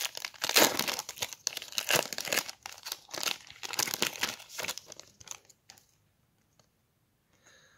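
Foil wrapper of a Panini Prizm trading-card pack crinkling and tearing as it is ripped open by hand, a dense run of crackles that stops after about five seconds.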